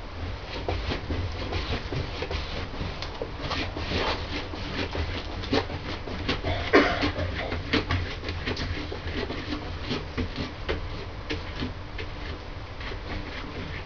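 Pen writing on a wall-mounted panel: a dense run of short, irregular scratches and taps, with one louder knock about seven seconds in.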